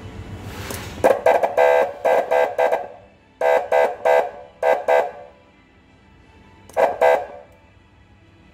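PA-300 siren amplifier sounding short electronic horn blasts through its loudspeaker: a quick run of about six honks, a short pause, four more, then a fast double near the end.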